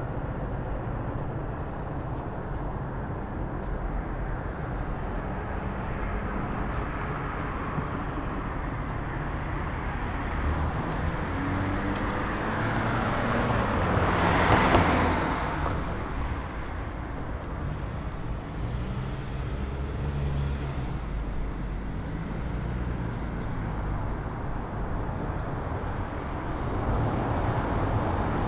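Street traffic: a steady low rumble of motor vehicles, with one vehicle passing close about halfway through, its noise swelling and then fading.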